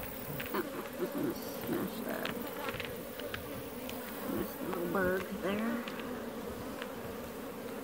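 Honey bees buzzing around an open hive, a steady hum with single bees passing close now and then. Light knocks and clicks come from the wooden frames being handled.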